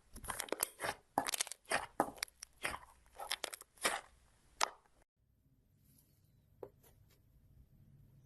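Slime being handled close to the microphone, making a run of crunchy crackles and pops for about five seconds. It then cuts to a much quieter stretch with a few faint clicks.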